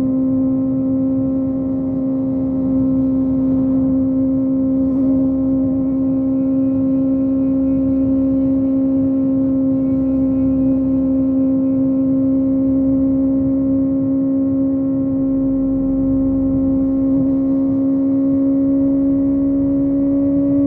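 Kawasaki ZX-25R's 250 cc inline-four, fitted with a Yoshimura exhaust, cruising at steady high revs: one held engine note over wind and road rush. The note creeps slightly higher near the end as the bike gains speed.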